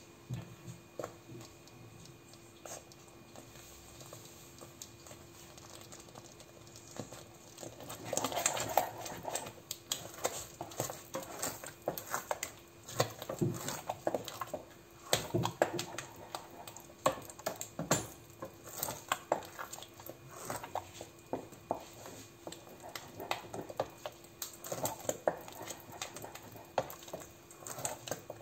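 A wooden spoon stirring a thick croquette béchamel in a stainless steel pot: irregular scraping and knocking of the spoon against the pot, sparse at first and much busier from about eight seconds in.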